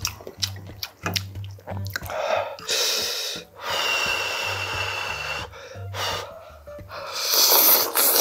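Noodles in broth slurped in long, loud sucks, twice, the second the loudest, with a few clicks of chopsticks and chewing before them. Background music with a bass line plays throughout.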